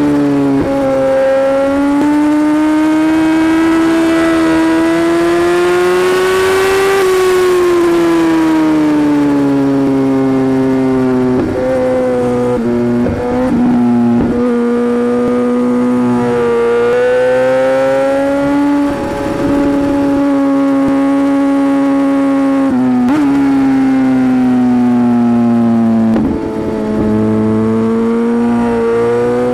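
Sport motorcycle engine at high revs, heard on board under track riding. The pitch climbs over the first several seconds under throttle, falls as the bike slows for corners, and breaks briefly a few times as the throttle is closed and reopened, including a downshift near the end.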